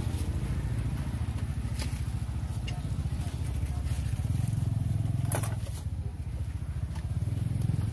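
A motorbike engine running close by: a low, steady putter. A few sharp clicks come about two seconds in and again about five seconds in.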